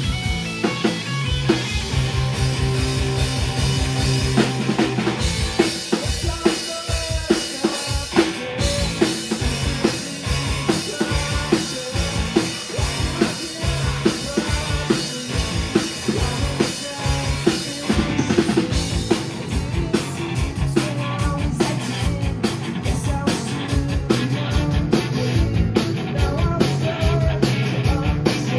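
Live rock band playing: two electric guitars, an electric bass and a drum kit keeping a steady beat.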